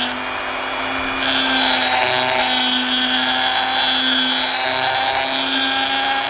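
Small high-speed power tool grinding away the inner fender of a 1:64 diecast car, running at a steady pitch with a bright hiss, louder from about a second in.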